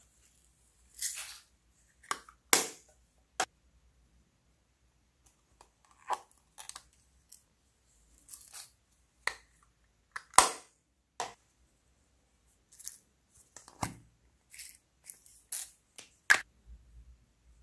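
Small plastic topping tubs being handled: lids clicking open and plastic tapping and rustling as clay sprinkles and glitter are shaken out onto slime. Scattered sharp clicks and short rustles with quiet gaps between them.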